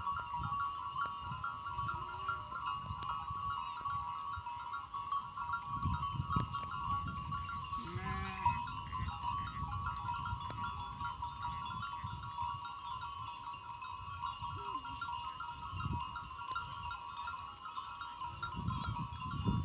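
Goats bleating now and then, about four short calls with the loudest near the middle, over the steady ringing of goat bells.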